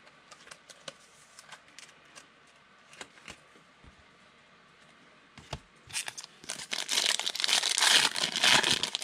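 Foil trading card pack wrapper crinkling as it is handled and opened, starting about six seconds in and loudest near the end. Before that, only a few light clicks.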